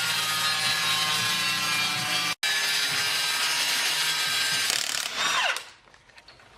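Handheld power tool running steadily with a loud, busy whine. It breaks off for an instant about two and a half seconds in, then winds down near the end with a falling whine.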